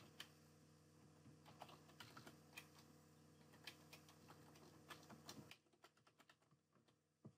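Faint typing on a computer keyboard: a run of light, irregular key clicks over a low steady hum. The hum drops away about five and a half seconds in, and a single sharper click comes near the end.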